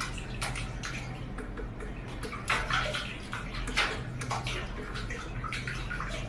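A cat pawing at water in a stainless-steel kitchen sink: water sloshing with irregular splashes, the loudest about two and a half and almost four seconds in.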